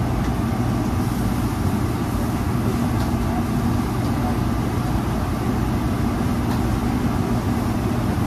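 Steady, loud drone of a commercial kitchen exhaust hood fan running, with a low hum, as chicken breasts cook on a gas charbroiler.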